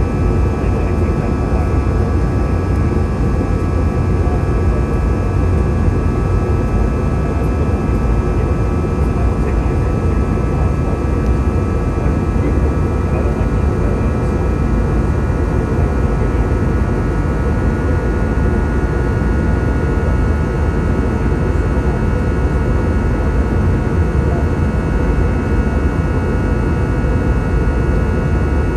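Steady jet cabin noise inside an Airbus A320-200 in flight: a heavy, even rumble of engines and rushing air. Several steady whining tones sit above it, unchanged throughout.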